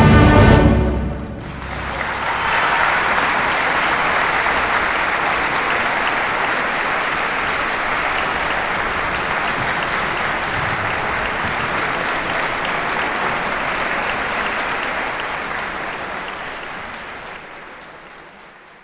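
A wind band's final chord, brass and timpani, cuts off about a second in, and a concert-hall audience's applause swells up and holds steady, then fades out near the end.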